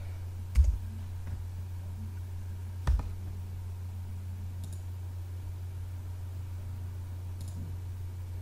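Two sharp clicks at a computer, the second louder, about two and a half seconds apart, over a steady low hum.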